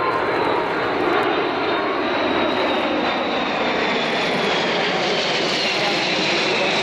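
Three Kawasaki C-1 military transports passing overhead in formation, their twin turbofan engines giving a steady loud rush with a high whine that slowly falls in pitch as they go by.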